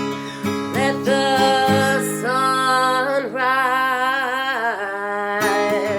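Song with strummed acoustic guitar, and a singer holding long notes with a wavering vibrato, sliding down near the end.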